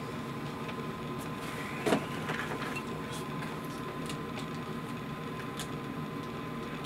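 Steady low room hum with a faint continuous high tone, broken by one short knock about two seconds in and a few faint clicks.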